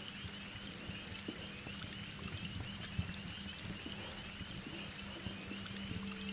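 Steady heavy rain with scattered sharp crackles and pops from a wood fire, over a low steady tone.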